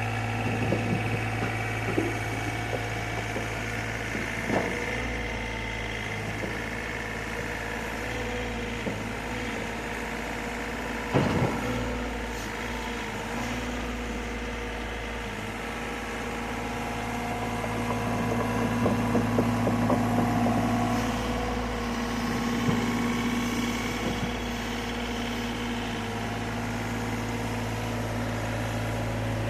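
Excavator's diesel engine running steadily while the machine is driven and worked onto a trailer, with sharp metallic clanks and knocks now and then, the loudest about eleven seconds in. The engine gets louder for a few seconds about two-thirds of the way through, as under heavier load.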